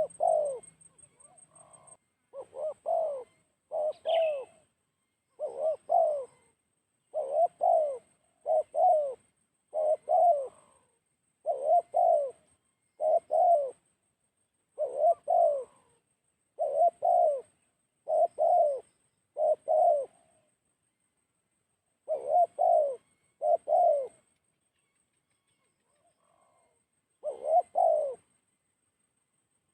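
Spotted dove cooing: a long series of repeated coos in close pairs, one about every second and a half, breaking off for a few seconds near the end. A brief higher chirp from another bird comes about four seconds in.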